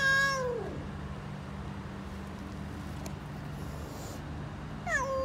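Calico cat meowing: one long meow at the start that drops in pitch as it ends, and another beginning near the end. A steady low hum runs underneath.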